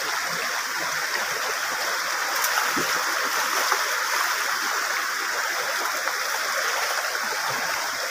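A swollen, muddy stream rushing steadily after heavy rain, full of turbulent flow around a person wading in it.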